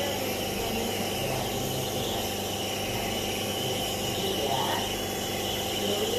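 Steady hum and hiss of a small running machine, with faint voices in the background.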